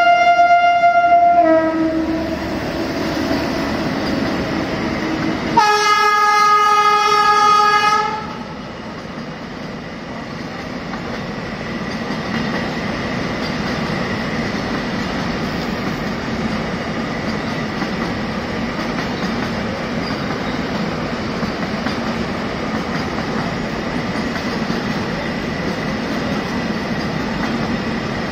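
A freight locomotive sounds its horn twice: a blast at the start lasting about a second and a half, and a second, lower blast about five seconds in lasting over two seconds. After that the container wagons roll past with a steady rumble of wheels on rail.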